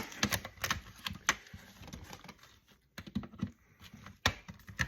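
Irregular light clicks and taps of hand tools against an electronics casing and circuit board during disassembly, with a few sharper knocks among them.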